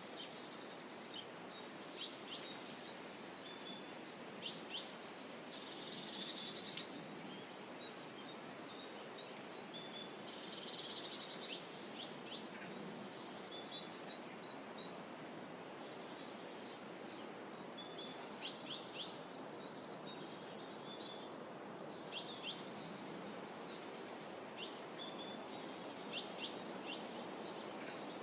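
Songbirds singing and chirping on and off, with short repeated notes, quick downward chirps and a couple of buzzy trills, over a steady soft outdoor hush.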